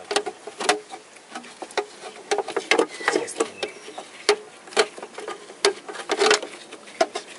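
Irregular light clicks, knocks and scrapes of metal wiper-linkage parts being handled and worked into position by a gloved hand, as the wiper motor's joint plate is set onto the linkage.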